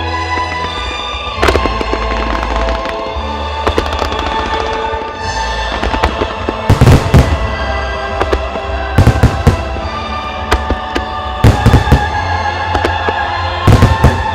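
Aerial firework shells bursting in quick clusters of sharp bangs every couple of seconds, the loudest groups past the middle and near the end, with a brief hiss about five seconds in. Music with long held notes plays under the bursts, setting the display's rhythm.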